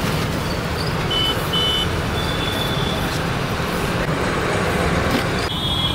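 Steady street traffic noise, with a few short high tones about one to three seconds in.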